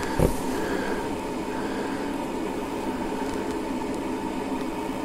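Steady mechanical room hum, like a fan or air-conditioning unit, with a few held tones. There is a soft bump just after the start.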